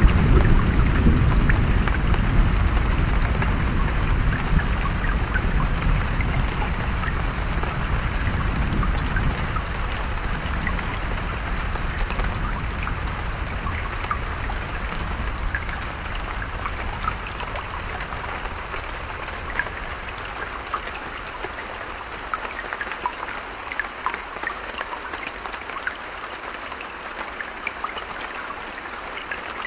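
Steady rain falling, with individual drops ticking through the hiss. A low rumble of thunder is loudest at the start and dies away over about the first twenty seconds.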